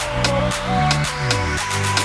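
Electronic dance music with a steady beat and heavy bass; a bass note slides down in pitch about halfway through.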